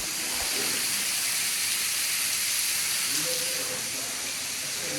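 Water pouring from the roof of a disused railway tunnel like a waterfall: a steady hiss of falling and splashing water.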